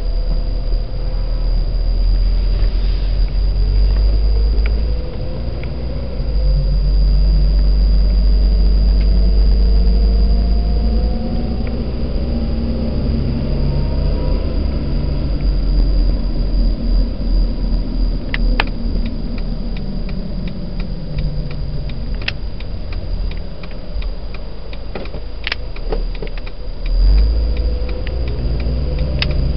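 Honda StepWGN's 2.0-litre four-cylinder engine and road rumble, heard from inside the van while driving. The engine note rises as the van speeds up and falls as it slows. A run of regular ticks comes in the second half, with a thump near the end.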